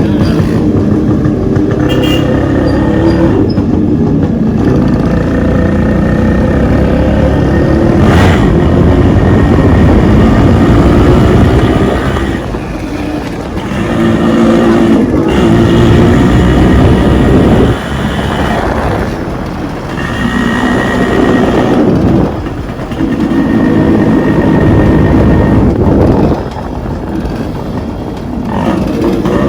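Modified Yamaha RX-series two-stroke single-cylinder motorcycle engine running loud and being revved repeatedly. From about halfway on, the engine speed drops back every few seconds between revs.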